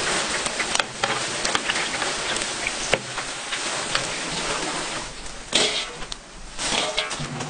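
Steady crackling hiss of fish-cake strips frying in hot oil, with scattered light clicks and scrapes of a wire mesh skimmer against a metal pot. The hiss eases after about five seconds, and a few short, louder scrapes come near the end.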